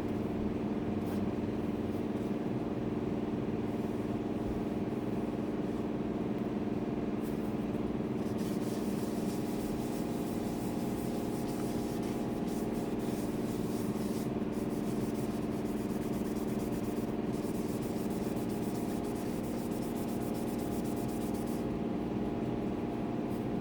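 Steady machine hum, with faint rubbing in stretches from a paper towel being wiped over the dyed wood of the guitar body.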